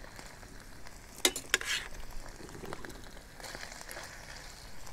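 Metal tongs tossing linguine through a frying pan of thick sauce, a soft wet stirring sound, with two sharp clicks of the tongs against the pan a little over a second in.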